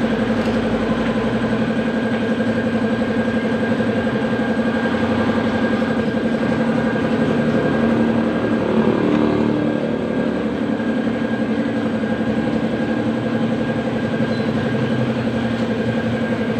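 Honda TMX 125 Alpha's single-cylinder four-stroke engine idling steadily, briefly louder a little past halfway, during a tune-up.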